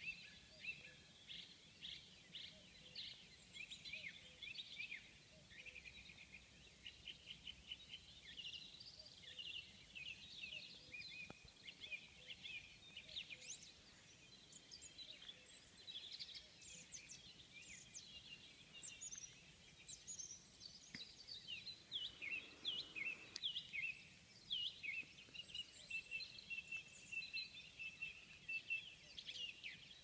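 Morning chorus of many small birds chirping and singing at once, a continuous overlapping stream of short high calls.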